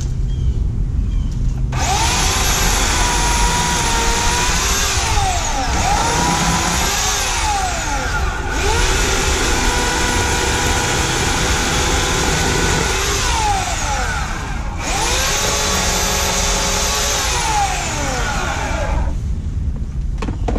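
Homelite 16-inch corded electric chainsaw running in bursts, its motor whine sagging in pitch and recovering several times as the chain bogs in cutting brush. It starts about two seconds in, cuts out for a moment twice and stops shortly before the end.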